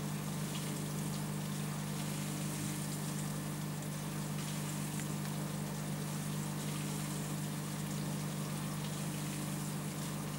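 Aquarium pump running with a steady low hum over the continuous hiss and patter of bubbling, moving water, with small scattered ticks.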